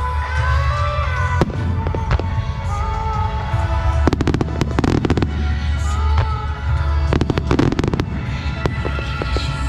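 Fireworks bursting overhead: clusters of sharp cracks and bangs about a second and a half in, again from about four to five seconds in and from about seven to eight seconds in, over a steady low rumble. Music with a sustained melody plays underneath.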